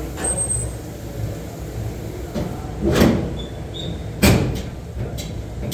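Two sharp knocks about a second and a half apart, with a few lighter clicks around them, over a low steady rumble.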